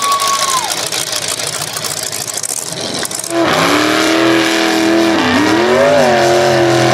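Mixed noise of engines and people in a pit area for about three seconds. Then a mega truck's engine revs hard and loud as the truck climbs a mud mound, its pitch dipping and then rising again.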